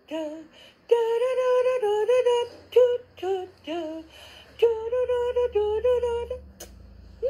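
A woman singing, holding long notes and stepping between a few pitches, with short breaks between phrases.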